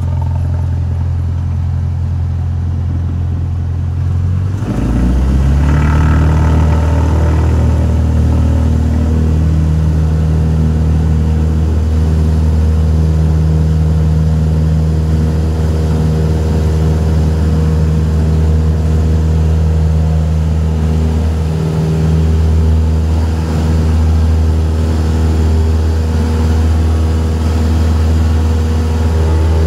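Piston engine and propeller of a high-wing single-engine light aircraft, heard from inside the cabin. About four and a half seconds in, the engine note rises and grows louder as the throttle is opened for the takeoff roll. It then runs steady at takeoff power.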